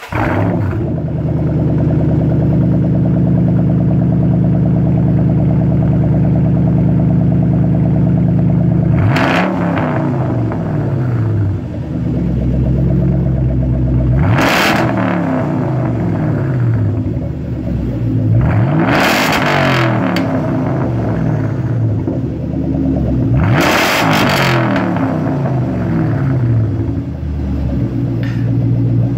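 2011 Ford Shelby GT500's supercharged 5.4-litre V8 through a Flowmaster Outlaw axle-back exhaust, just started and running at a raised idle that drops about nine seconds in. It is then revved in four quick blips about five seconds apart, each rising sharply and falling back to idle.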